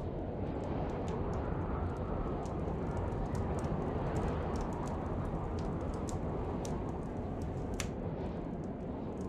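Wood fire crackling: scattered sharp pops and snaps at irregular intervals over a steady low rush.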